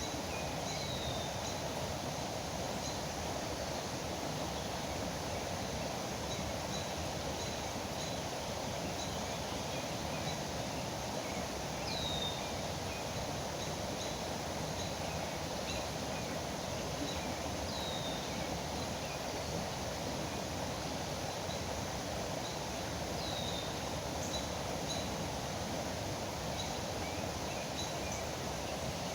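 River water rushing steadily, with birds calling over it: a few high, downward-sweeping calls several seconds apart and scattered short chirps.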